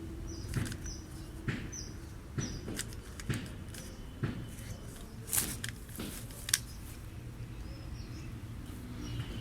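A 3x3 Rubik's Cube being turned by hand: a run of short plastic clicks and scrapes as the layers rotate, the strongest a little past the middle.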